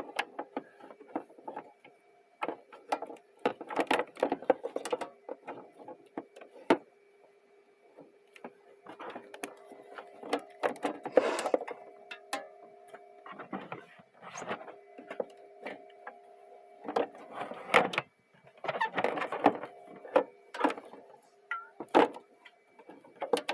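Drink cans and bottles being shifted around on the shelves of a mini fridge: irregular knocks, clinks and rustles, the loudest about eleven seconds in, over a steady faint hum.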